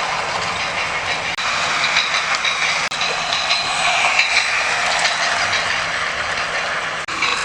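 Adventure Force battery-powered toy train running on its plastic track: a steady, noisy running sound with scattered clicks. It breaks off briefly twice.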